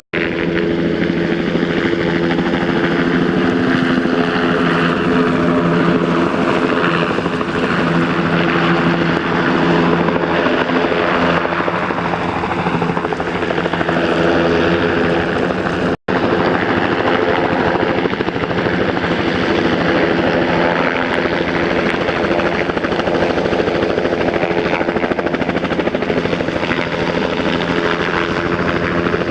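Helicopter's rotor and engine sounding steadily and loud, the sound cutting out for an instant twice, near the start and about halfway through.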